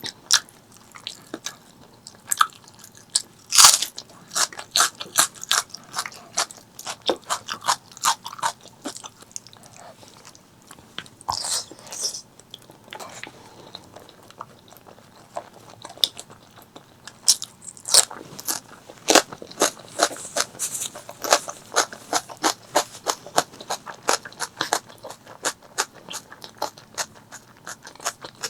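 Close-miked eating: a person biting and chewing food, with a dense run of sharp crunchy clicks and smacks, several a second, and a few louder crunches.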